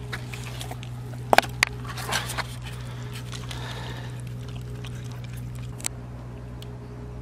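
A plastic food tray is set down on the ground with two sharp knocks, then a dog eats the food chunks from it, over a steady low hum.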